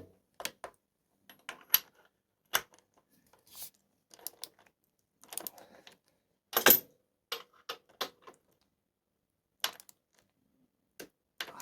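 Scattered metallic clinks and clicks of a spanner and socket wrench working on the motorcycle's swingarm pivot bolt nut as it is tightened, with the loudest clank just past halfway.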